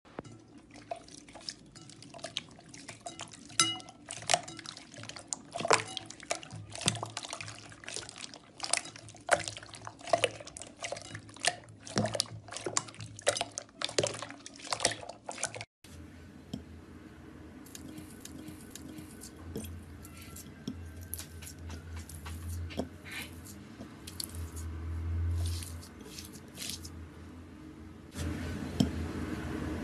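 Water splashing, sloshing and dripping in a glass bowl as hands scoop and drop small fruit-shaped objects, with many sharp splashes and clicks. About halfway through it breaks off, and quieter handling sounds follow over a low hum.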